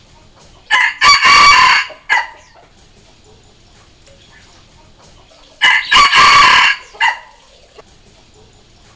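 Red junglefowl rooster crowing twice, about five seconds apart. Each crow is loud, short and broken into a few segments, lasting about a second and a half. It is a decoy cock's crow of the kind used to call wild junglefowl.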